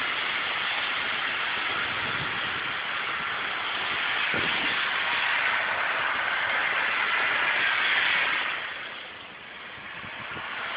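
A car's engine running under a steady, heavy hiss, which swells and then drops away sharply near the end.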